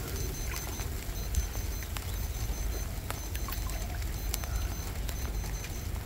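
Steady low wind rumble on the microphone, with water trickling and dripping in a galvanized stock-tank cold plunge as the bather lifts his arms out, and scattered light ticks of rain.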